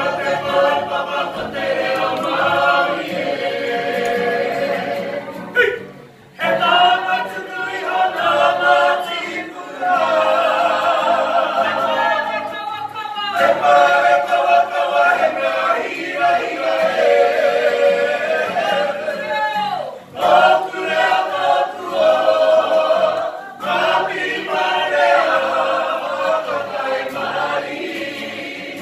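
A group of voices singing a song together in choir-style harmony, with brief breaks between phrases about six seconds in and again around twenty seconds in.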